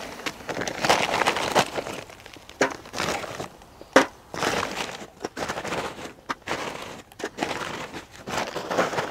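Paper sack of charcoal briquettes being handled and opened: stiff paper crinkling and rustling in irregular bursts, with a few sharp clicks.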